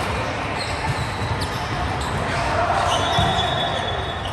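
Volleyball play in a sports hall: repeated thuds of the ball being hit and bouncing on the court, over the echoing noise of the hall.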